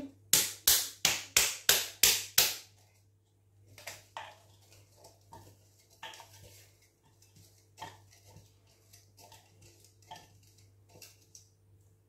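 A rapid run of about seven sharp knocks as a container of chopped onion is tapped against the slow cooker pot to shake the onion out, followed by softer, scattered knocks.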